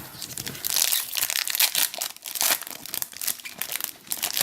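Plastic wrapper of a Panini Contenders trading card pack being torn open and crinkled in the hands, a dense run of crackling rustles.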